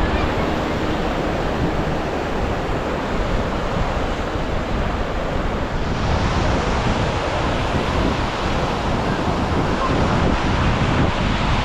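Waves breaking and washing on a beach as steady surf, with wind buffeting the microphone.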